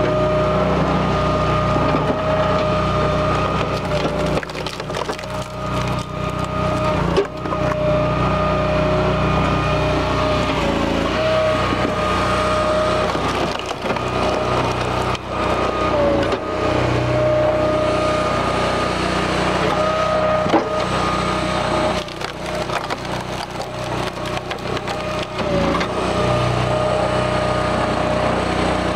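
Hydraulic firewood splitter running with a steady engine-and-pump whine that dips briefly in pitch several times. Over it, logs crack and splinter again and again as they are forced through the splitting head.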